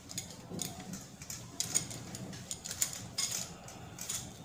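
Light stand being handled and adjusted: a run of irregular light clicks, clinks and rattles from its sections and fittings.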